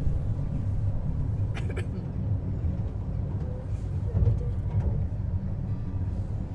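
Farm park ride-on train running along its track with a steady low rumble. A couple of sharp clacks sound about one and a half seconds in.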